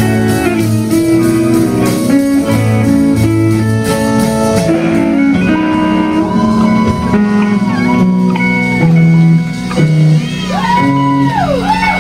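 Live guitar music: a plucked guitar passage with no singing, its notes bending up and down near the end.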